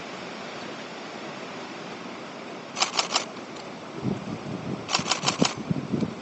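Nikon D750 DSLR shutter firing in two short bursts of rapid clicks, about four frames and then about five, some two seconds apart. Under it the steady rush of river water, with wind buffeting the microphone in the second half.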